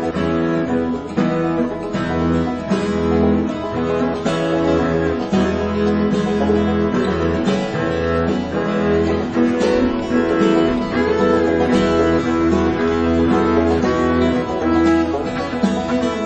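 Instrumental background music in a country style, led by plucked guitar over a steady low bass line.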